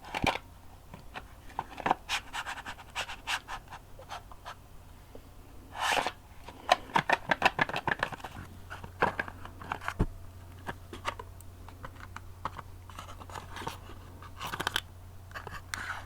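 Crayons being handled and scratched in close-up: short scratchy strokes and light clicks, with a rustling burst about six seconds in followed by a quick run of clicks.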